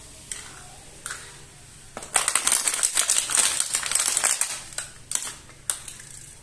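Thin clear plastic blister packaging crackling loudly for about two and a half seconds as small plastic toys are pulled out of it, with a few light clicks of the plastic toys being handled and set down before and after.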